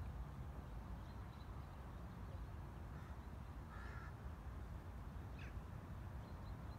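A crow gives a single short caw about four seconds in, over a steady low rumble.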